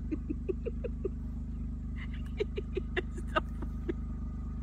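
A horse working its lips and tongue, giving a run of short wet smacking clicks, over a steady low motor hum.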